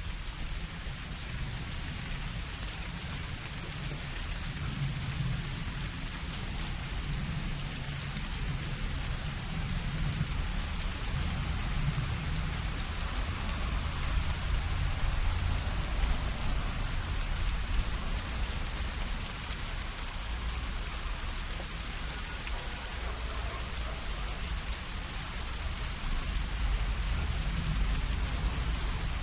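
Steady rain falling on leaves and surrounding surfaces in a thunderstorm, with deep rolls of thunder rumbling underneath, swelling about a third of the way in and again near the end.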